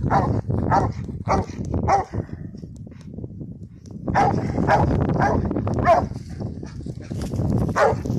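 Treeing cur barking steadily at the tree, a rapid chop of about three barks a second, with a break of about two seconds near the middle before the barking picks up again: the tree bark of a dog that has treed its quarry.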